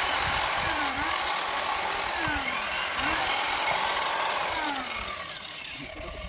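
A machine running with a steady, noisy whir and sweeping tones that repeat about once a second; it grows fainter near the end and then cuts off suddenly.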